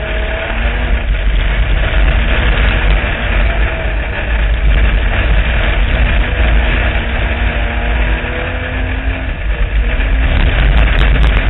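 Street stock race car engine running hard at racing speed on a dirt track, heard from inside the cockpit under a heavy, steady rumble of wind and track noise. A few sharp clicks come near the end.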